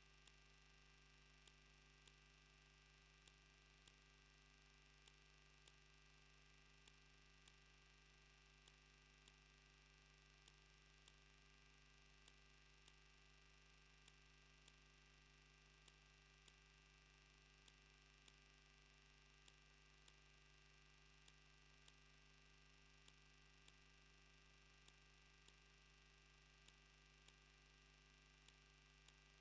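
Near silence from a faulty wildlife-camera audio feed: a faint, steady electrical hum with a faint tick repeating about every 0.6 seconds.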